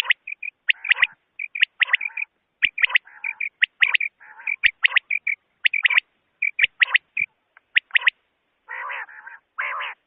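Common quail calling: a fast run of short, sharp, high notes, several a second, mixed with lower, harsher notes.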